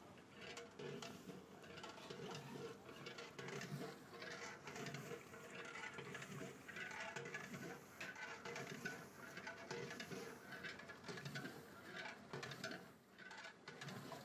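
Bubbling, sizzling curry gravy in a large aluminium pot, stirred vigorously with a long metal ladle: a crackling patter of bubbles and splashes with the churn of the stirring.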